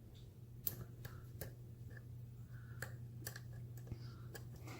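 Faint, irregular metallic clicks and ticks of a thin 15-thousandths lock pick and tension wrench working the pins in the tight paracentric keyway of a Sargent padlock, over a low steady hum.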